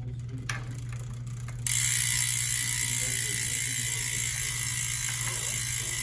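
Freehub ratchet of a Reynolds Strike carbon wheel buzzing as the wheel is spun and freewheels, a dense, even clicking that starts suddenly a little under two seconds in, after a single click. It sounds very mechanical and metally.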